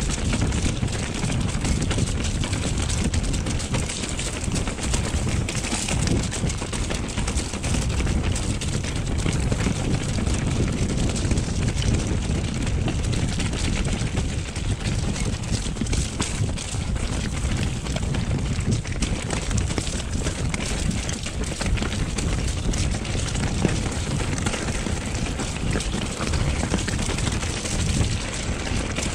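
Steady wind rush on the microphone with the rumble of a mountain bike being ridden over a trail.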